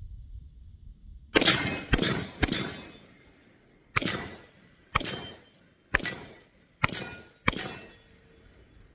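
Eight sharp metallic clangs, each ringing out and fading over about half a second: steel shooting targets being hit. They come in an uneven rhythm, three close together, then five spaced about a second apart.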